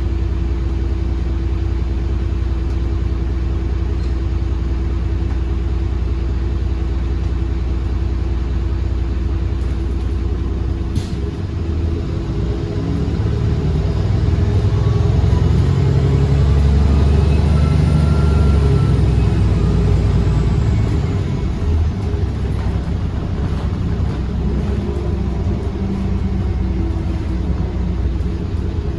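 Iveco Urbanway 18 hybrid articulated bus running: a steady low hum with a constant tone, then about halfway through a louder rumble that swells and fades over several seconds, with a faint whine rising and falling in pitch. A single sharp click sounds a little before the rumble builds.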